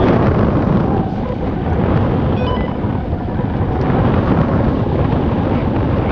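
Heavy, steady wind rushing over the camera microphone from the paraglider's airflow in flight.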